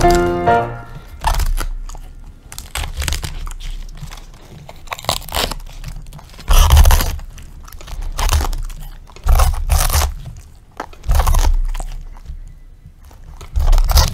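A dog biting into and chewing a raw cabbage head, close to the microphone: irregular loud, crisp crunches of leaves snapping, about one every second or so. Piano music ends in the first second.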